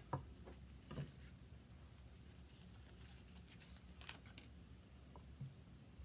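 Near silence: quiet room tone with a few faint, light taps and clicks of small things being handled on a tabletop.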